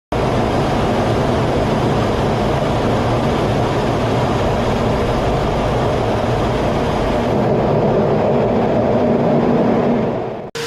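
Military fighter jet engine roar, loud and steady with a deep rumble. It dulls and fades over the last few seconds, then cuts off abruptly.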